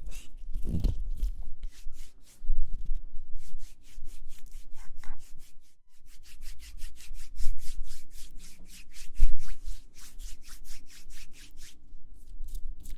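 Close-miked ASMR rubbing and scratching: a fast run of short, soft scratchy strokes with a low rumble under them.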